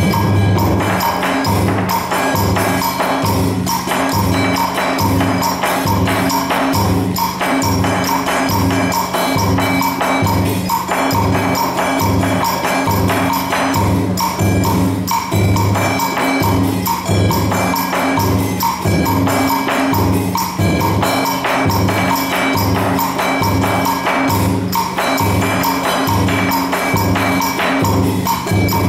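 Traditional Vietnamese drum ensemble playing a fast, unbroken run of drum strokes and sharp clacks over sustained pitched tones.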